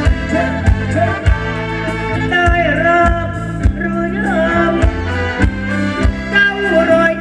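A band playing Thai ramwong dance music. A steady drum beat falls about every 0.6 seconds under a wavering, gliding lead melody.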